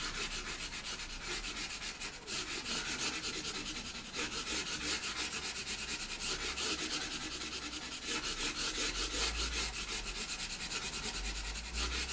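Caran d'Ache pastel pencil scratching across textured Hahnemühle Lana Colours pastel paper in quick, repeated back-and-forth strokes, laying colour over a broad area.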